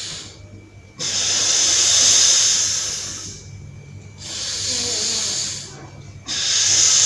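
Nasal breathing of Surya Bhedana pranayama, drawing air in through the right nostril and letting it out through the left. Long breaths of about two seconds each with short pauses between them; every other breath is louder and starts sharply.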